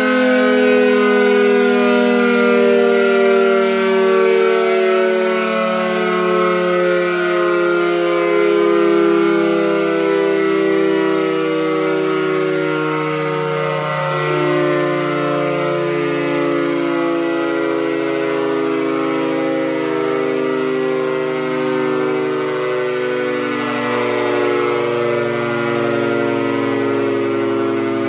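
Secomak GP8 air raid siren sounding a loud, continuous wail whose pitch slowly falls across the whole stretch, getting a little quieter as it goes.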